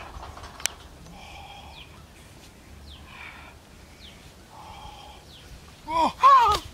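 Faint high chirping over a quiet outdoor background, then, about six seconds in, a man's loud yell that rises and falls in pitch.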